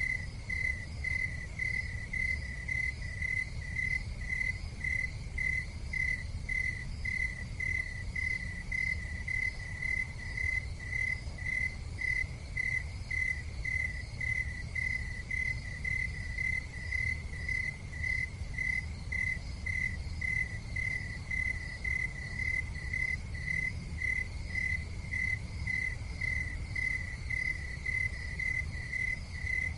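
A cricket chirping steadily, a short high pulsed note repeating about twice a second, over a low steady rumble.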